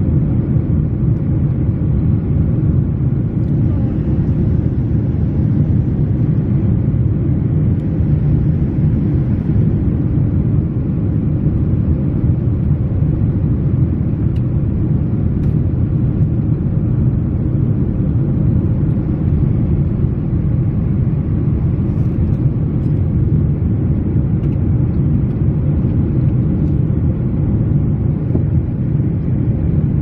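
Airliner cabin noise: a steady, even low roar of engines and rushing air that holds unchanged throughout.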